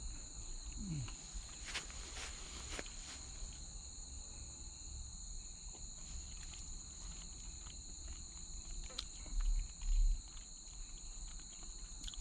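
Steady, high-pitched chorus of forest insects, with a few faint clicks and two low thumps near the end.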